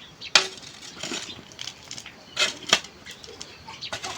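A few sharp knocks and clatters, the loudest about a third of a second in and two more close together around halfway, with smaller ticks in between.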